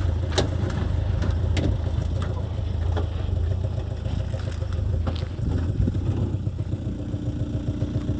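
Vehicle engine running with a steady low drone while driving, with scattered knocks and rattles. A steady higher hum joins about seven seconds in.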